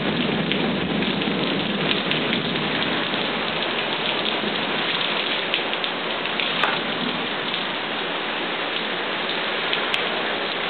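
Heavy thunderstorm rain pouring down steadily, a dense patter of drops on a surface.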